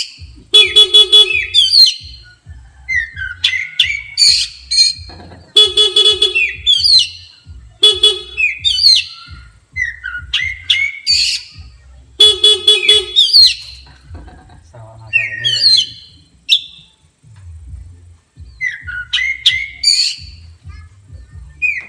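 Oriental magpie-robin (kacer) singing in loud, rapid bursts of chirps and whistles, the agitated, aggressive song it gives in reply to a horn. A buzzy horn sounds four times, about a second each, with the bird answering right after each blast.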